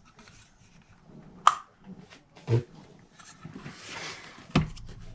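Tabletop handling of a paper punch and cardstock: a sharp click, a soft thump, a stretch of paper rustling and a hard knock, as the punch and paper strip are picked up, set down and lined up.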